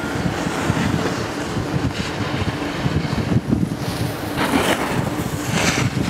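Wind buffeting the microphone of a camera riding a chairlift: a constant gusty rumble, with a few short hissing swells in the second half.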